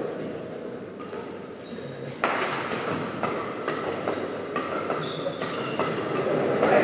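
Badminton rally: a sharp racket hit on the shuttlecock about two seconds in, then a string of further hits and short shoe squeaks on the court floor, over a low murmur from the hall.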